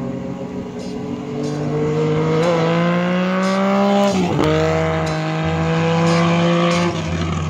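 Engine accelerating hard: its pitch climbs steadily, drops sharply at a gear change about four seconds in, then climbs again and stops near the end.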